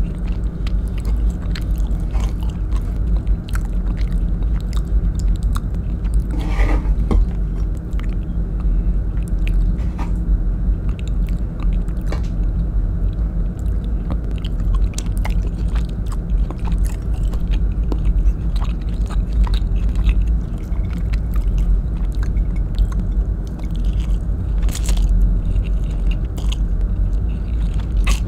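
Close-mic chewing and wet mouth clicks from eating tender beef in coconut-milk sauce by hand. A steady low rumble runs underneath.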